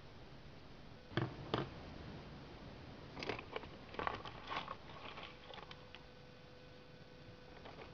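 Pencil sketching on a sheet of paper: two short knocks a little over a second in, then a run of quick scratchy strokes from about three to five and a half seconds. A faint steady hum comes in after the strokes.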